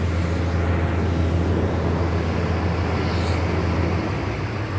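Farm machine's engine idling steadily, a deep low hum that eases slightly about four seconds in.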